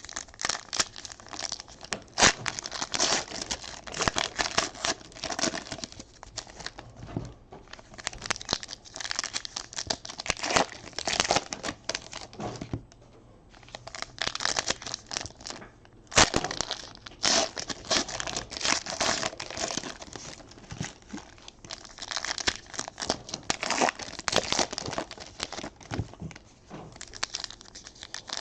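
Wrappers of trading card packs being torn open and crumpled: long runs of crinkling and tearing, broken by a few short pauses.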